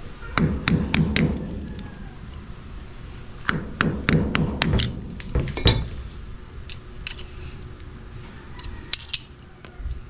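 Old flat screwdriver being pushed and worked into a hole in a steel door jamb, giving sharp metallic clicks and scrapes in two bursts, then a few scattered ticks.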